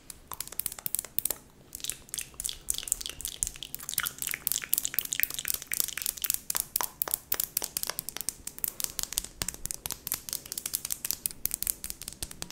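Metal tweezers clicking and snapping close to a microphone as ASMR eyebrow-plucking sounds: a dense, irregular run of crisp clicks and crackles.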